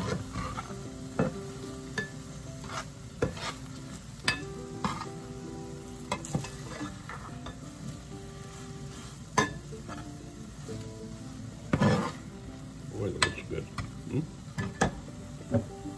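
Spatula stirring and scraping a sizzling mix of chopped tomatoes and onions in a nonstick frying pan, with frequent sharp clicks and knocks of the spatula against the pan. The loudest knocks come about twelve seconds in.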